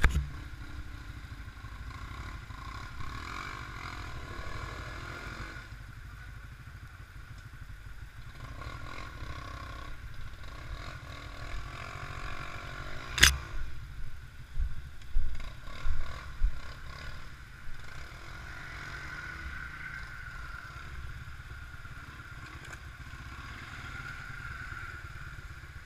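Quad bike (ATV) engines running at low speed. About halfway through comes a sharp knock, then several seconds of thumps and clatter as the machine jolts over rough ground.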